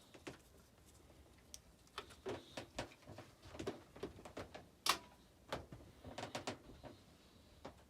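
Irregular light knocks and clicks, about a dozen, the sharpest about five seconds in: tools and metal parts being handled.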